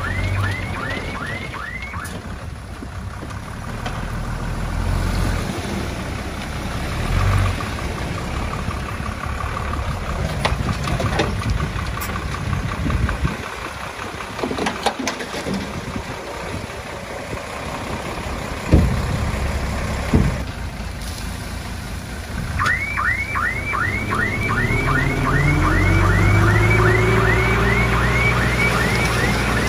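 Komatsu D20A bulldozer's diesel engine running under load as it works, with a few sharp knocks of stone and steel, the loudest about two-thirds of the way through.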